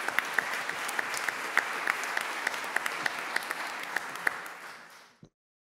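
Audience applauding with many overlapping claps. The applause fades and then cuts off suddenly about five seconds in.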